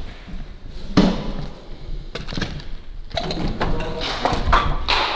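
Scattered knocks and thuds: one sharp knock about a second in, then a run of clicks and knocks in the last two seconds.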